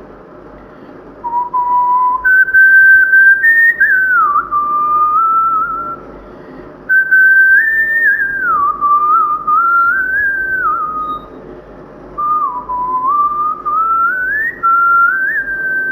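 A person whistling a song melody in three phrases, with gliding slides between notes. The last phrase ends on a long held note.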